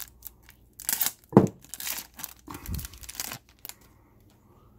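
Foil wrapper of a 2015 Prizm football card pack being torn open, crinkling in irregular bursts for about three seconds, with one sharp crackle in the middle.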